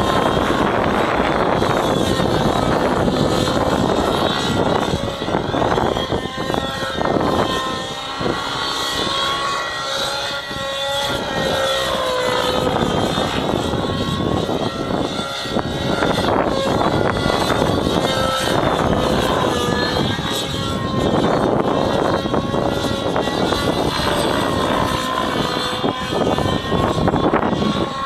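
Align T-Rex 700 Nitro RC helicopter in flight: its nitro glow engine and rotor run at high speed as a steady high-pitched engine note. The pitch wavers slightly, and the sound dips in loudness through the middle as the helicopter manoeuvres.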